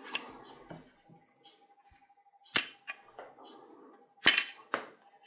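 Gloved hands handling a graphics card: cloth rubbing against it and several sharp clicks and knocks from its metal bracket and hard shroud. The loudest knocks come about two and a half and about four and a quarter seconds in.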